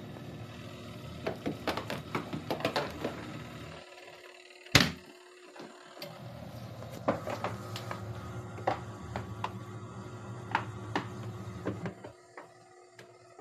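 Mini washing machine motor humming steadily, stopping for about two seconds partway through, then running again, with scattered clicks and knocks. There is one loud knock during the pause.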